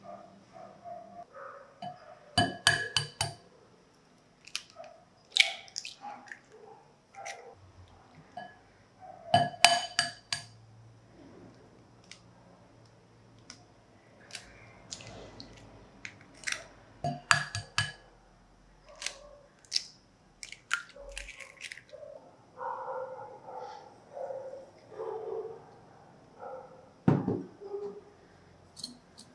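Irregular sharp clinks of a spatula and eggshells against glass mixing bowls as chocolate is scraped and eggs are tapped and cracked, with a softer rustling stretch near the end as sugar goes into the bowl.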